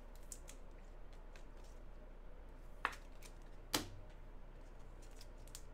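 Trading cards being slipped into plastic sleeves and top loaders: faint clicks and rustles of plastic and card, with two sharper taps about three and four seconds in.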